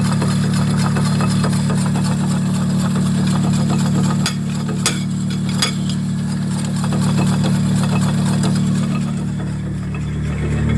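A 2001 Chevrolet Celta's engine running steadily, with fast fine ticking over it and three sharp clicks about halfway through. This is the noise the owner is tracing to the front wheel, which he takes for the brake caliper not retracting and the pads dragging on the disc.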